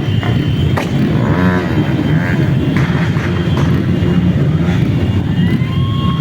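Several motorcycle engines running together, a loud, continuous low rumble.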